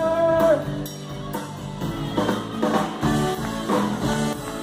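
Live stage band music with drums and guitar. A long held note ends about half a second in, and the band plays on with a steady beat.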